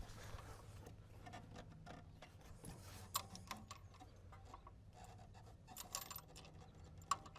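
Faint, scattered light metallic clicks and clinks of hands handling parts in an engine compartment, a few sharper ones about three seconds in and near the end, over a low steady hum.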